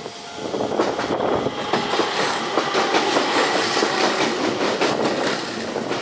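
Enshū Railway electric train passing the level crossing, its wheels clattering over the rail joints, growing loud about half a second in and staying loud.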